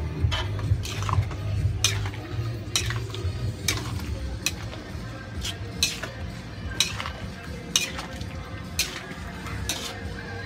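A long metal spatula stirring pork pieces simmering in liquid in a large metal wok, clanking against the pan about once a second.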